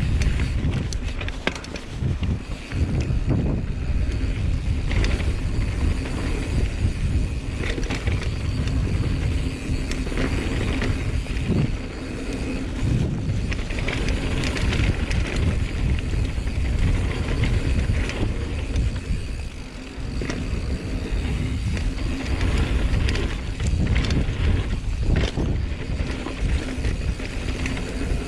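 Mountain bike riding down a dirt trail: continuous tyre and wind rumble, with frequent sharp knocks and rattles as the bike goes over bumps.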